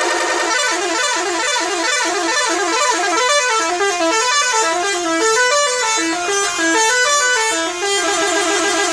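Bus telolet horn, a multi-tone musical air horn, playing a quick melody of short stepping notes, with a steady held chord at the start and again from about eight seconds in.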